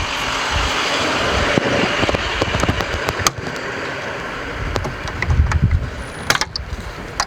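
Plastic interior trim and parts being handled and pried: a scraping, rustling stretch, then several sharp clicks and knocks, two of them close together near the end.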